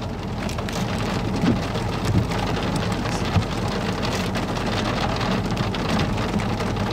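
Heavy rain falling steadily during a tornado-producing thunderstorm, with many fine drop ticks over a low steady hum. A few short low thumps come about a second and a half, two seconds and three and a half seconds in.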